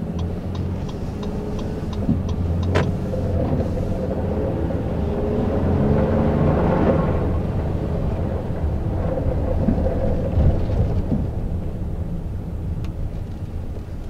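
2017 Honda Ridgeline's V6 engine and tyres heard from inside the cab while driving on a snow-covered road, with a steady low rumble of road noise. The engine note rises in pitch around the middle as the truck picks up speed after a stop.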